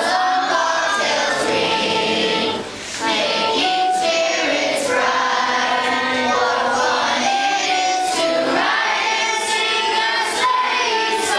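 A group of children singing together in held notes. There is a short break for breath about three seconds in.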